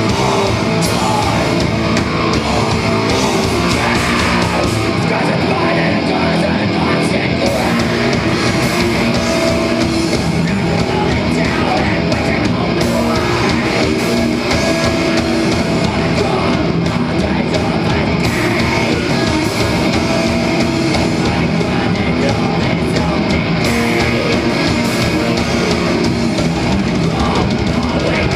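Loud live heavy metal band playing: distorted electric guitar, drum kit and keyboards, with a vocalist singing into the microphone.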